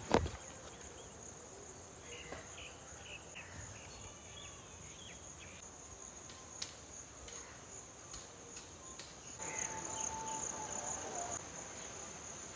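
Insects trilling: one steady, high-pitched, unbroken note, with a few faint clicks and brief chirps over it.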